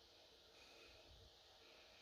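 Near silence: faint room tone with soft low rumbles.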